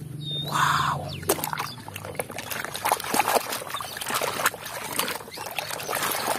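A hand sloshing a plastic toy truck through a tub of thick muddy water, with irregular splashes and drips.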